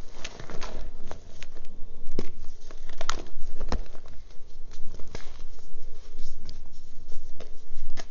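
Close-miked reformed gym chalk crunching and crumbling as hands squeeze pieces apart and drop chunks and powder into a bowl of chalk: irregular sharp cracks and crackling, loudest twice about three seconds in.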